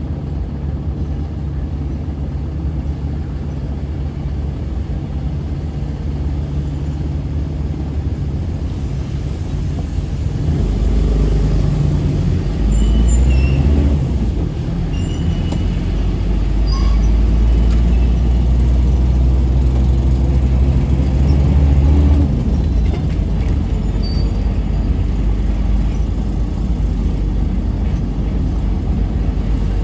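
Motor vehicle driving in town traffic: steady low engine and road rumble that grows louder about ten seconds in, holds, and eases back a little after about twenty-two seconds. A few faint short high chirps are heard in the middle.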